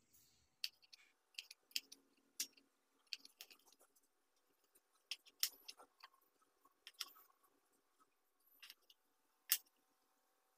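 Knife peeling and slicing raw potatoes on a plastic cutting board: faint, scattered scrapes and crisp clicks at an irregular pace.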